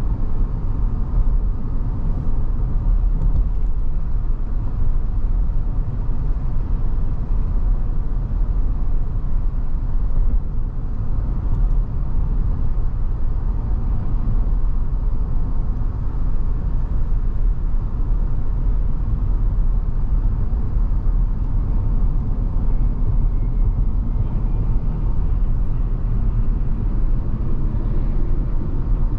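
2023 Chevrolet Tahoe Premier with its 5.3 L V8 driving along: a steady low rumble of engine and road noise.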